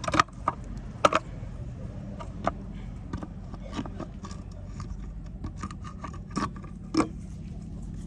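Scattered light metallic clinks, taps and scrapes of engine parts being handled on a Toyota 2JZ-GE engine as a valve cover is set back on, over a steady low hum.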